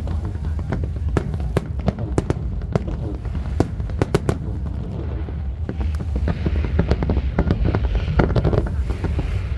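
Aerial fireworks display: a steady run of sharp bangs and cracks over a constant low rumble. The crackling grows denser about halfway through.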